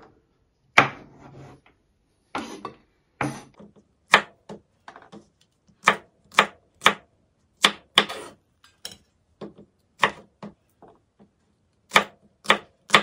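Chef's knife chopping okra into small rounds on a bamboo cutting board: a series of sharp knocks of the blade against the board, spaced unevenly at first and coming about two a second near the end.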